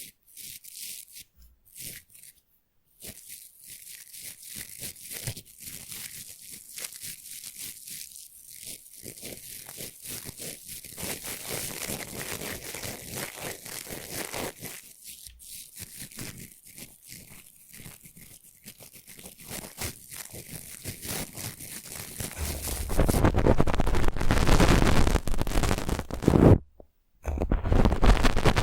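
Brush bristles being stroked and scratched in quick, crisp strokes close to the microphone, making a dense, prickly rasp. About two-thirds of the way through the brushing turns much louder and fuller, pauses briefly, then resumes.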